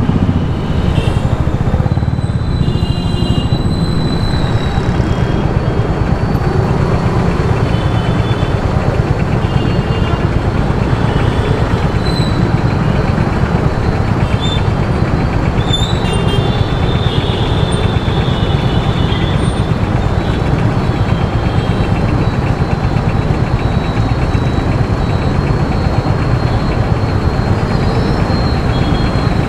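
Steady road and engine noise from a vehicle being driven, heaviest in the low range, with a few brief high tones over it.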